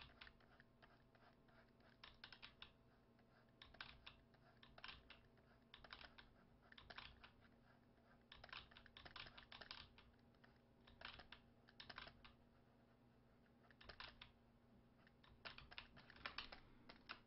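Faint clicks and taps in short runs every second or so from a computer desk, keyboard keys and a stylus on a drawing tablet, over a low steady hum.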